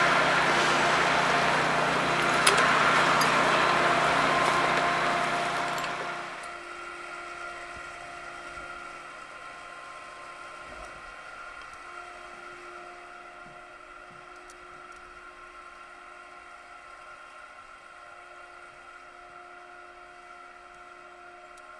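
Steady engine hum of the fire engine's pump running, with a loud rushing hiss over it and one sharp click. About six seconds in the hiss drops away, leaving the pump engine humming more quietly.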